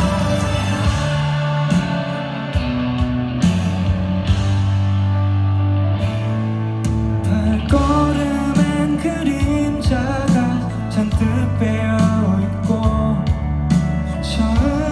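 Live band music, a pop-rock song with a steady drum beat and sustained bass. A wavering melodic line, voice or lead instrument, comes in over it about eight seconds in.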